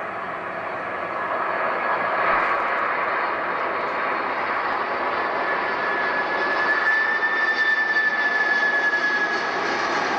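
Boeing 747-400's four jet engines on final approach: steady jet noise that grows louder as the airliner nears. A high whine comes in about halfway through and drops slightly in pitch near the end.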